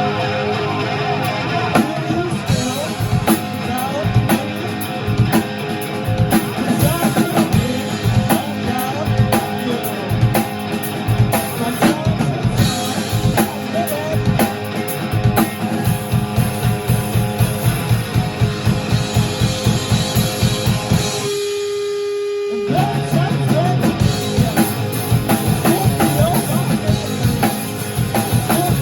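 Rock band playing with electric guitar and drum kit at full volume. About three-quarters of the way through, the band cuts out for about a second and a half, leaving a single held note, then comes back in.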